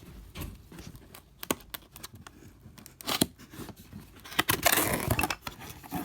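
Packaging being opened by hand: scattered clicks and scrapes, then a longer tearing sound, the loudest part, about four and a half seconds in.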